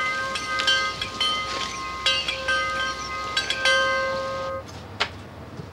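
Metal chimes ringing: the same few notes struck again and again at irregular intervals, stopping about four and a half seconds in.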